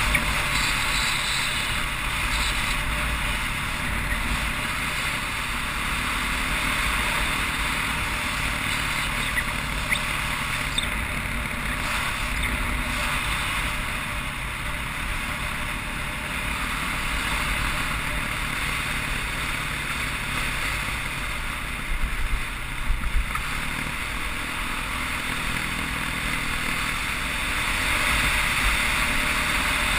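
Off-road motorcycle engine running at a steady cruise on a gravel road, heard under strong wind noise on the microphone. A few short knocks come about three-quarters of the way through.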